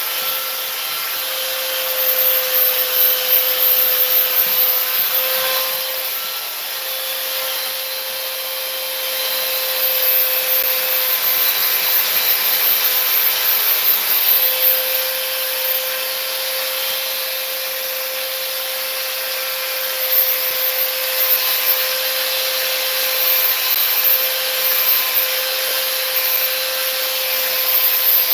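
Belt sander running on fiberglass, a steady whine over a harsh sanding hiss. The sanding swells and eases every few seconds as the sander is worked against the panel.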